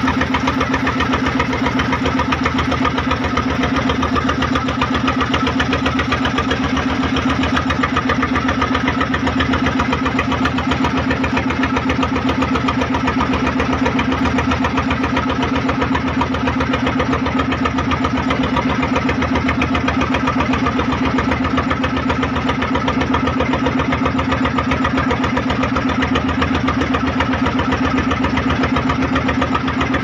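A fishing boat's inboard engine running steadily, heard from on deck, with a fast even beat over a steady low hum.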